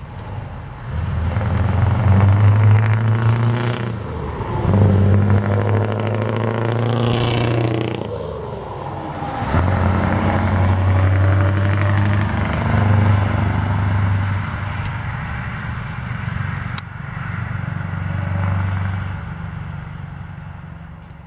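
Scania 164 580's V8 diesel on open exhaust pipes, running loud under load, its note rising and falling several times as the revs climb and drop.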